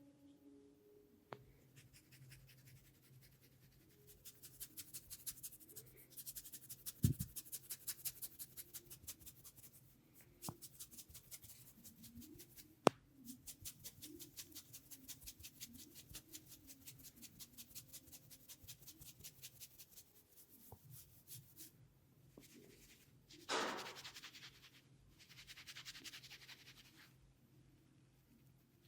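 Hands rubbing and kneading oiled skin and long hair in a rhythmic massage: a fast run of soft, even friction strokes, several a second, with one sharp click about halfway and a couple of longer swishes near the end.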